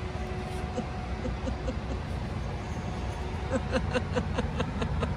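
Steady low engine rumble from idling vehicles, with a faint steady hum for the first couple of seconds. Over the last second and a half comes a quick run of short high chirps, about five a second.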